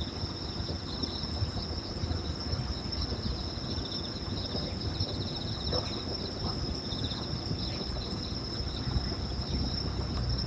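Night insects, crickets among them, chirping steadily: a continuous high trill with a pulsing chirp just below it, over a low background rumble.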